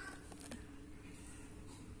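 Faint handling of a cardboard sticker box and its paper sheets, with one light tap about half a second in, over a steady low hum.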